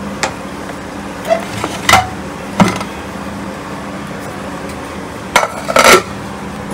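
Metal clanks of a pressure cooker being opened: a few sharp clicks and knocks in the first three seconds, then a louder cluster of clanks near the end as the aluminium lid comes off. A steady low hum runs underneath.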